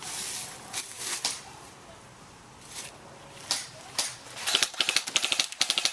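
Airsoft guns firing during a firefight: scattered single shots, then a rapid run of full-auto shots near the end.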